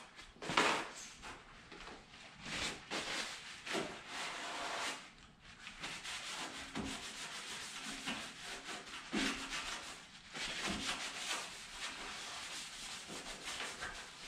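A paper towel torn off the roll, then repeated irregular rubbing strokes of the towel wiping gritty Comet cleanser off a painted engine-bay panel that has just been scuffed.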